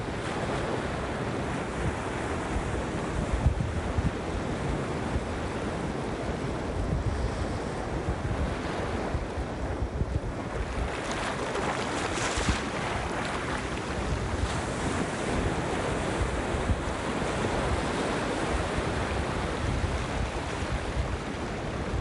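Ocean waves washing over and around shoreline rocks, with a steady low rumble of wind on the microphone. A bigger wave surges over the rocks about halfway through, giving a louder, hissing wash.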